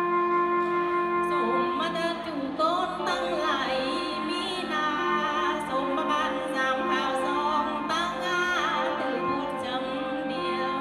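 Nghệ Tĩnh folk song performance with sustained instrumental accompaniment. A singing voice enters about two seconds in and carries wavering, heavily ornamented melodic lines over the held accompaniment notes.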